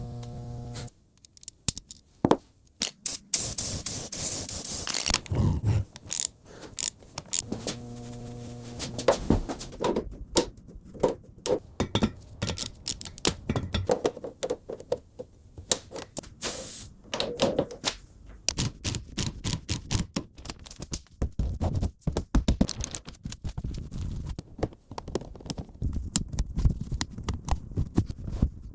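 Hand-tool repair work on a car: many sharp knocks and taps mixed with scraping, in an irregular rapid stream. There is a hiss about four seconds in, and a short low hum near the start and again about eight seconds in.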